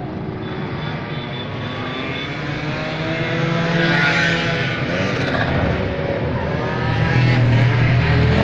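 Two-stroke engine running and revving, its pitch rising and falling, louder about halfway through and again near the end.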